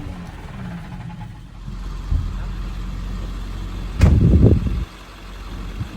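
Low, steady rumble of a vehicle engine. About four seconds in comes a sharp knock followed by a louder low rumble lasting under a second.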